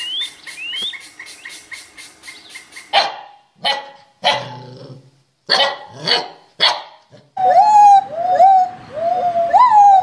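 A woodpecker in its nest hole gives a rapid run of high ticking calls with rising squeaks. Then puppies bark and yip, about six short barks. Then gibbons call loudly in repeated whoops that rise sharply and slide down again.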